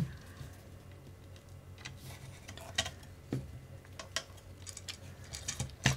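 Scattered light clicks and taps of small screws and plastic RC car kit parts being handled and screwed together by hand, the sharpest click just before the end, over a faint steady low hum.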